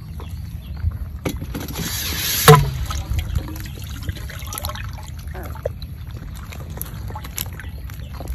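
Wet handling noise of live eels slithering in a wicker basket, with scattered small clicks and rustles. A rustling swell ends in one loud sharp knock about two and a half seconds in.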